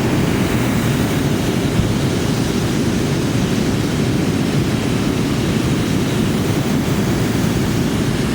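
Hot air balloon's propane burner firing in a long, steady blast.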